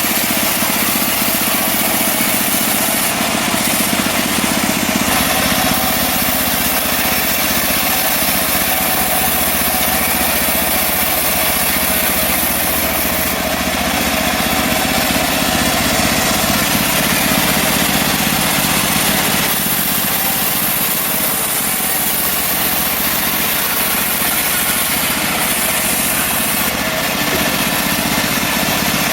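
Portable band sawmill's small engine running steadily.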